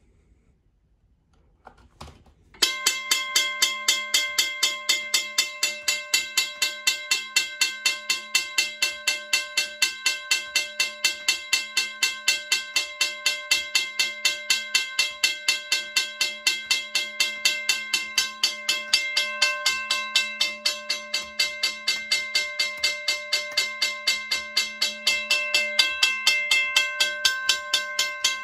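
Western-Cullen-Hayes mechanical railroad crossing bell starting up about two and a half seconds in, its electric striker hammering the metal gong in rapid, steady strokes, each strike ringing with several clear tones. It is running on 12 V DC from a step-down transformer and works properly.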